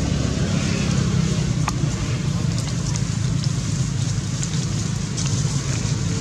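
Steady low rumble of outdoor background noise, with a faint click about a second and a half in.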